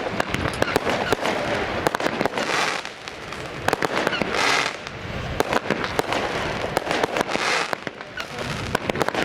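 Fireworks display going off: a rapid run of sharp bangs and crackles, with a hissing rush about every two to three seconds.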